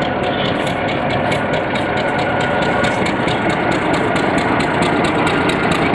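Diesel train engine running steadily and loudly, with a fast, even rhythmic clatter over its drone.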